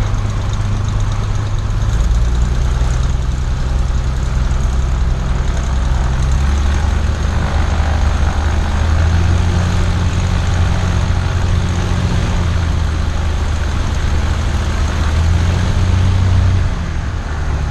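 Cessna 172 Skyhawk's piston engine and propeller running at low power while taxiing to park after landing. The engine note steps to a new pitch a few times as the throttle is moved.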